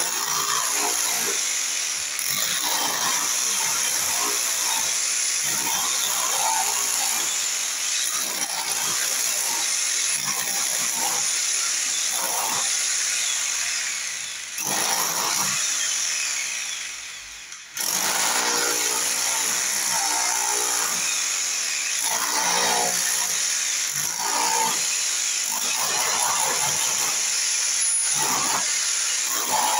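Electric angle grinder running with a steady high whine as it grinds into the concrete floor around a pipe stub. About fifteen seconds in it winds down, then starts again sharply about two seconds later.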